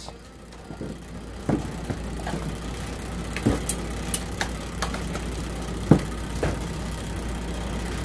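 Washing machine timer running after being plugged in: a steady low hum with a few sharp clicks scattered through it.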